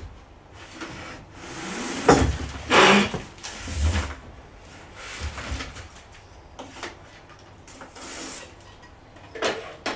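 Cardboard scraping and rustling with several knocks and a low thump as a 3D printer's control box with its touchscreen is lifted out of its shipping carton. The loudest scrapes and knocks come about two and three seconds in, with the thump about a second later.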